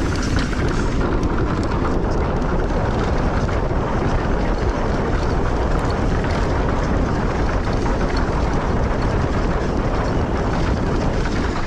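Wind buffeting the camera microphone and knobby mountain-bike tyres rumbling over a bumpy dirt trail during a fast descent, a steady rushing noise with scattered small clicks and rattles.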